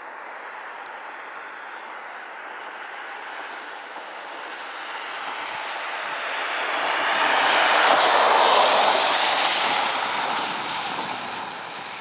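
A passing vehicle: a steady rushing noise swells from about four seconds in, is loudest around eight seconds, then fades away.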